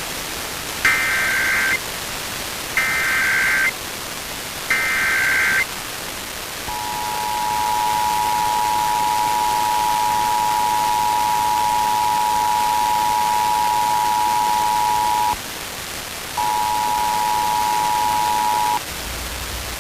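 Emergency Alert System test signals over a steady hiss: three short bursts of SAME header data about a second apart, then the two-tone EAS attention signal, held for about eight and a half seconds, breaking off briefly and returning for about two seconds more.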